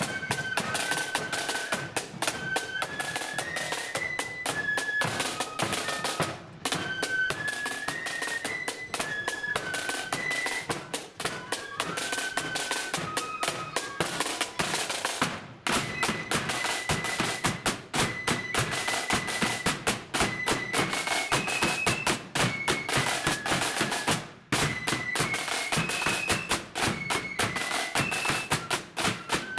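Blood-and-thunder marching flute band playing: flutes carry a unison melody over rapid snare-drum rolls and a bass drum. The music breaks off briefly three times between phrases.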